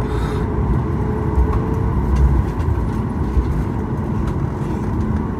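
Cabin noise of a Boeing 737 MAX 8 taxiing: a steady low rumble from its CFM LEAP-1B engines at idle and the wheels rolling over concrete, with a faint steady engine whine.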